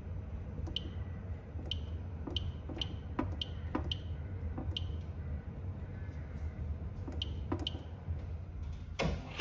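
Buttons being pressed on a fire alarm control panel's keypad: a dozen or so short sharp clicks at uneven intervals over a low steady hum. A single loud knock comes at the very end.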